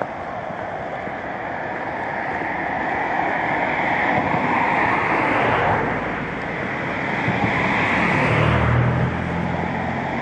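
Cars passing on the road across the bridge: tyre and engine noise swells to a peak about five seconds in, dips, then a second vehicle passes with a low engine hum about eight to nine seconds in.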